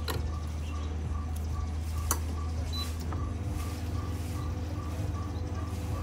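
La Marzocco espresso machine: a sharp click as the portafilter locks into the group head, another click about two seconds in, over the machine's steady low hum, which grows stronger about three seconds in as the pump starts for the espresso shot. Faint high pips repeat about two and a half times a second.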